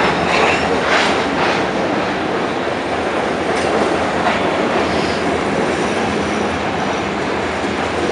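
Train rolling by on the rails: a steady, loud rumble of wheels with clattering, and a few sharp clanks in the first second and a half.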